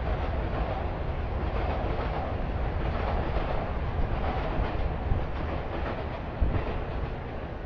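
Vehicles rumbling past a city street crossing: a steady, low, noisy rumble with a few faint knocks and one short thump near the end.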